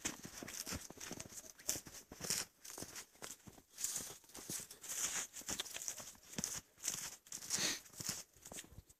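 Footsteps crunching in thin snow in an uneven, hurried rhythm, with crackling and rustling.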